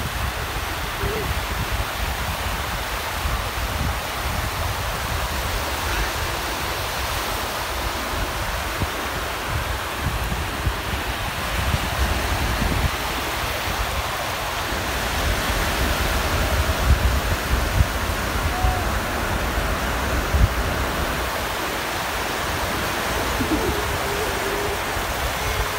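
Steady wash of small ocean waves breaking and running up the sand, with a gusty low rumble of wind on the microphone.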